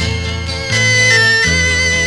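Instrumental passage of a Korean folk-pop record played from an LP: sustained melody notes over a bass line that steps to new notes twice.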